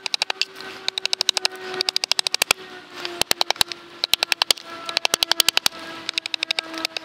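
Hultafors chopping axe striking a green-wood spoon blank on a chopping block, sped up so the chops come as rapid runs of sharp knocks: about seven runs of many strikes a second, with short pauses between them. A steady low tone runs underneath.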